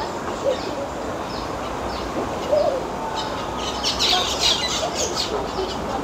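Birds chirping over steady outdoor background noise: repeated short, high chirps that fall in pitch, growing busier about four to five seconds in, with a few fainter lower call notes beneath.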